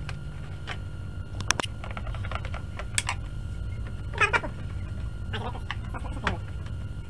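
Low steady hum with a few sharp clicks and knocks from handling the plastic cabinet of a CRT TV, and a short wavering cry about four seconds in, with two fainter ones after it.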